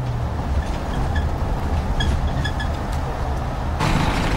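Prison van's engine running steadily on the move, a low rumble heard from inside the rear compartment; about four seconds in it gives way to louder engine and road noise as the van goes by.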